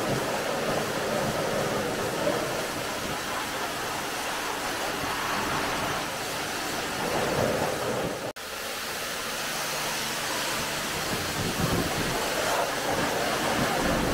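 Water spraying in a steady rushing hiss, as during a car wash, with a brief dropout about eight seconds in.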